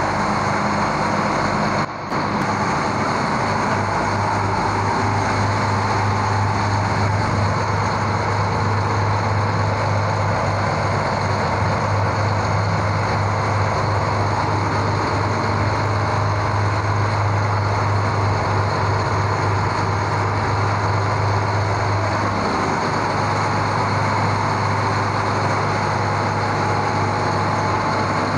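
Tugboat's diesel engine running steadily while towing a barge, a loud, even drone heard from inside the hull with a strong low hum. The sound dips briefly about two seconds in.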